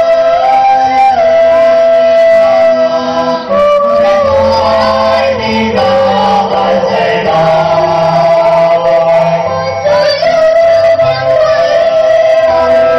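A small mixed group of young singers singing a song together into hand microphones, amplified through a PA, with long held melody notes.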